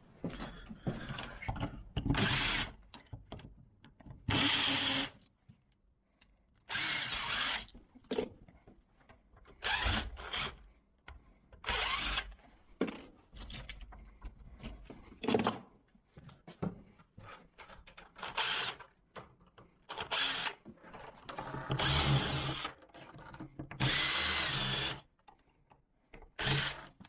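Power drill running in many short bursts of about half a second to a second, several with a steady whine, with small clicks and knocks of lock hardware in the gaps.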